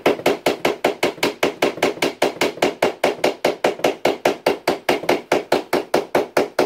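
A hammer, swung sideways in a cramped space, drives a steel Romex staple into a wooden rafter with rapid, even taps, about six a second. Each tap has a short ring.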